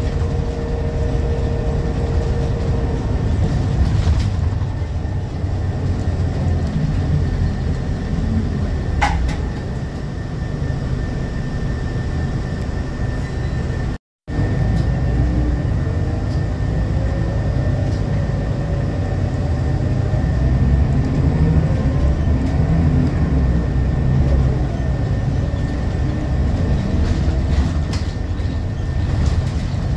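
Interior ride noise of a Scania L94UB bus under way: the rear-mounted diesel and ZF Ecomat automatic gearbox running, with steady road rumble and body rattles. A short squeal about a third of the way in, the sound cutting out for a split second about halfway, and a faint rising whine through the second half as the bus picks up speed.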